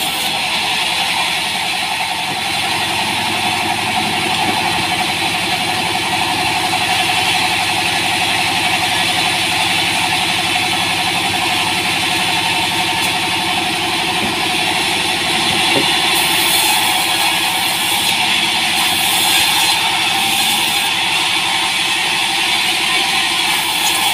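Vertical band saw mill running steadily, its blade cutting through small green logs as they are fed through. The drive machinery makes a steady engine-like drone that continues throughout.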